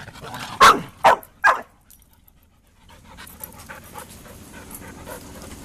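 A dog panting and making three short loud sounds about half a second apart in the first second and a half, then a brief near-silent gap and softer steady panting.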